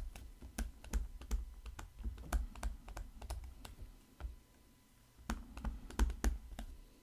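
Stylus on a pen tablet while words are handwritten: irregular light taps and clicks, a few a second, pausing briefly about four seconds in.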